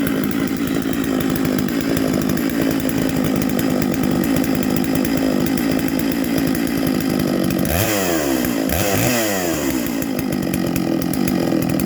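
Farmertec MS660 clone two-stroke chainsaw running at idle just after starting. About two-thirds of the way through it is revved up briefly and drops back to idle.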